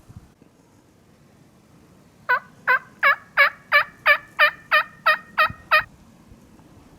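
A turkey yelping: a run of about eleven loud, evenly spaced yelps, about three a second, that stops abruptly.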